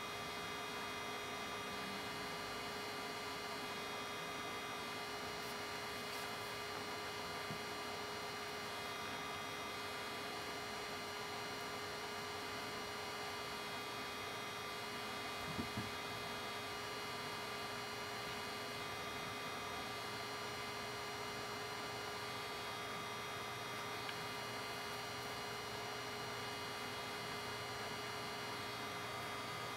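Steady electrical hum with several constant high tones over a low hiss, with a brief soft bump about halfway through.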